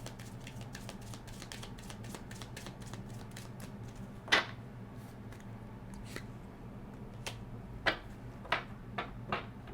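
A deck of oracle cards being shuffled by hand: a quick run of small card flicks for about the first four seconds, then a handful of separate, sharper snaps as cards are cut and drawn.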